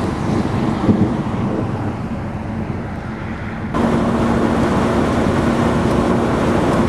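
Steady rush of wind and vehicle noise with no speech. A little past the middle it cuts abruptly to a louder rush carrying a steady low hum.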